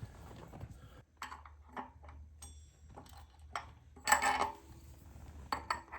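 Light metallic clinks and ticks of small bike hardware being handled and fitted: a spacer and a small nut going onto a bolt on an e-bike. There is one louder clatter about four seconds in.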